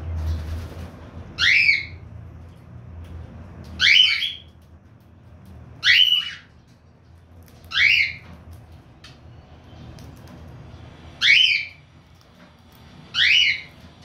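Cockatiel calling: six short, loud, upward-sweeping squawks, about two seconds apart, with a longer pause before the last two.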